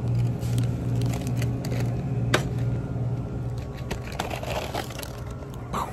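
A glass freezer door and a frozen-food cardboard box being handled: scattered clicks, a sharp click about two seconds in, crinkling as the box comes off the shelf around four to five seconds in, and a short knock near the end, over a steady low hum.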